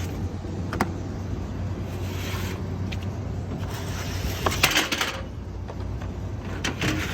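Dirty air filters being slid out of a Carrier unit's filter track: rubbing and scraping with a few sharp knocks, over a steady low hum.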